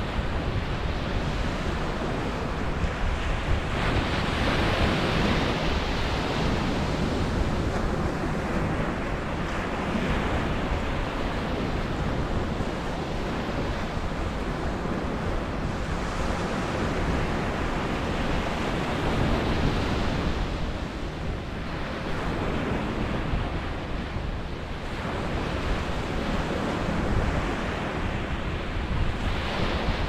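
Small surf breaking and washing up a sandy beach: a steady rush of water that swells every few seconds as each wave comes in.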